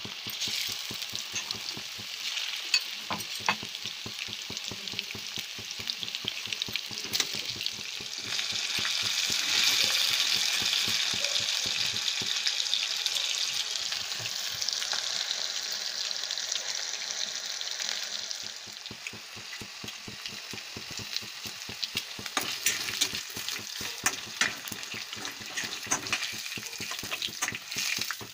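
Besan-battered chicken pakoras deep-frying in hot oil: a steady sizzle with constant small crackles and pops, louder for about ten seconds in the middle.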